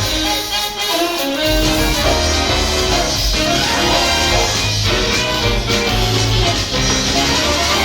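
Instrumental show music with a melody over a steady bass beat, without singing.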